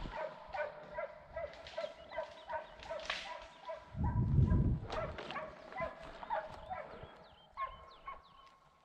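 Hunting hounds baying on the trail of wild boar: a steady run of barks, two or three a second, fading toward the end. There is a low rumble about four seconds in.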